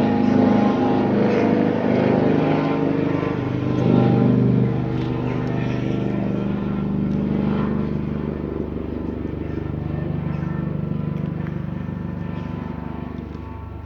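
Police helicopter flying low overhead, its rotor and engine giving a steady drone. It is loud for the first few seconds, then fades gradually as it draws away.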